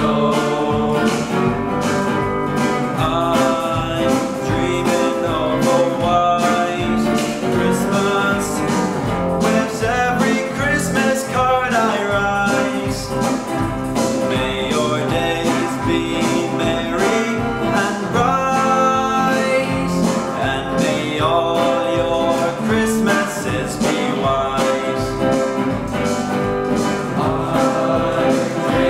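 A Christmas song sung by a group of male voices with guitar accompaniment and a steady beat.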